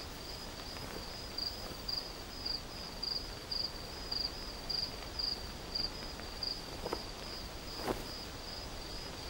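Cricket chirping in a steady, even rhythm of short high-pitched pulses, about two a second, over faint outdoor dusk ambience, with two brief faint sounds about seven and eight seconds in.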